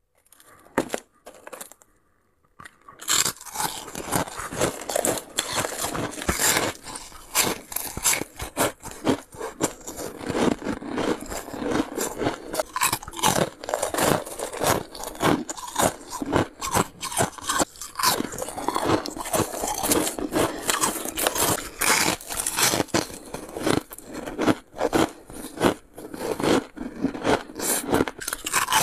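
Freezer frost being bitten and chewed and scraped out of a plastic tub with the fingers: a dense run of crisp crunches and scrapes that starts about three seconds in, after a few faint clicks.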